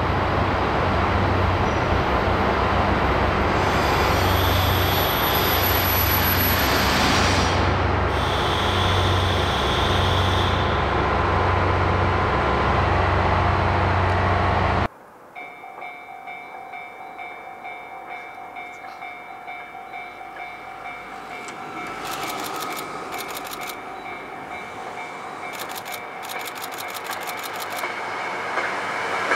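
JR Hokkaido KiHa 183 series diesel train running, a loud steady engine drone with a low pulsing hum. About halfway through it cuts off suddenly to a quieter rail scene with steady tones and short spells of rapid clicking, which grows louder near the end.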